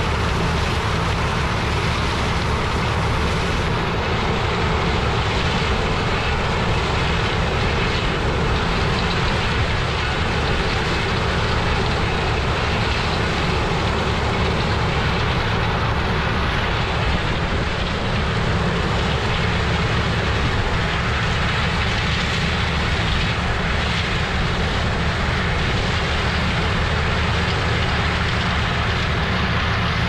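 Heavy farm machinery, a combine harvesting corn with a track tractor and grain cart alongside, running steadily: a low engine hum under an even rush of machine noise that holds without change.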